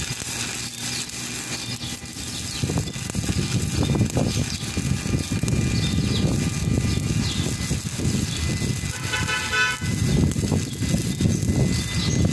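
Stick-welding arc crackling steadily as the electrode burns along a weld on heavy steel. A brief horn-like tone sounds about nine seconds in.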